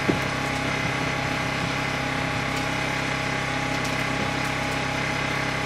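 Steady drone of a running motor, an even hum with several low tones that does not change. A single small knock comes right at the start.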